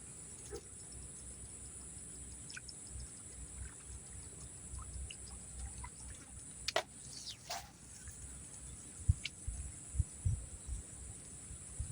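Steady high-pitched drone of insects in swampy vegetation, with a few faint chirps. About seven seconds in come two sharp clicks, and a few soft low thumps follow near the end.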